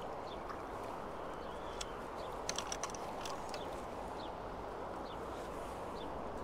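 Steady rush of flowing river water, with scattered small splashes and clicks, a short cluster of them about two and a half seconds in.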